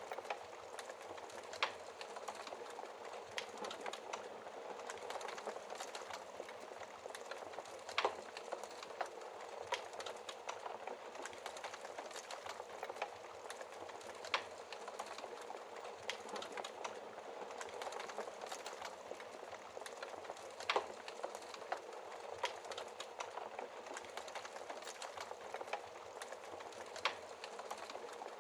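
Wood fire crackling in a fireplace: a steady soft hiss full of small crackles, with a louder sharp pop about every six seconds.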